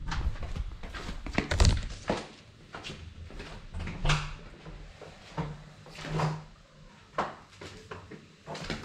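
Handling knocks and thumps as a camera is set down on a tile floor, the loudest a heavy thump about a second and a half in, followed by scattered knocks and clicks in a small room.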